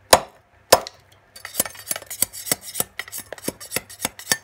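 A heavy knife forged from leaf-spring steel chopping into a bamboo pole at the node: two hard strikes, then a quicker run of lighter chops, about four a second, with some rasping of the blade on the wood. This is the final straight-in cut through the node, made after the side cuts that let the wood split away.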